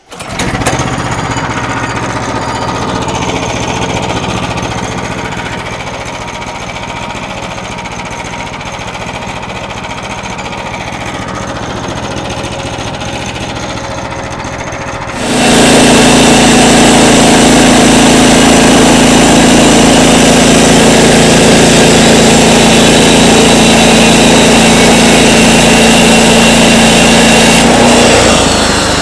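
Portable sawmill's gasoline engine starting up and running steadily. About halfway through it is throttled up much louder as the blade cuts the top slab off a log, and it eases off slightly near the end.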